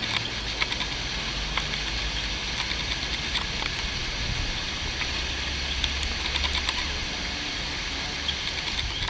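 Outdoor background sound: a steady low rumble and hiss, with scattered faint ticks and short chirps over it.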